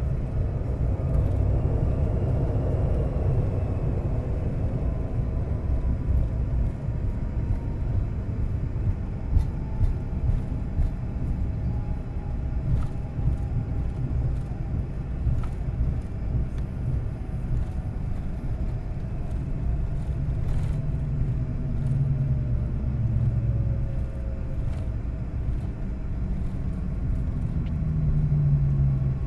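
Cabin noise of a Boeing 757-200 rolling out on a wet runway after touchdown: a steady, heavy rumble from the wheels and airframe, with the engine whine slowly falling in pitch as the jet slows.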